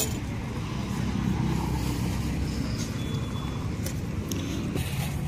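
Steady low rumble of road traffic, with a few faint clicks near the end.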